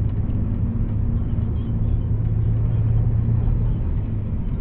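Intercity bus's diesel engine drone and road rumble from inside the cab while under way; the engine note holds steady, then eases off about three and a half seconds in.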